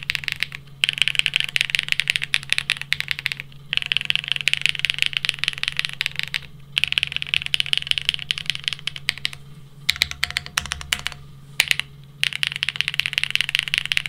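Typing on a plateless Geonworks W1-AT mechanical keyboard with lubed Gateron Raw switches and GMK keycaps. The fast clacking comes in several bursts with short pauses, then slows to separate key presses about ten to twelve seconds in.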